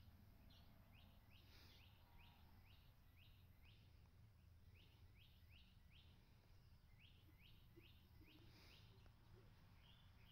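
Near silence, with a faint low hum and runs of quick, faint chirps, about three a second.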